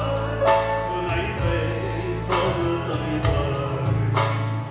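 A man singing live into a microphone through PA speakers, over electronic keyboard accompaniment with a steady drum beat.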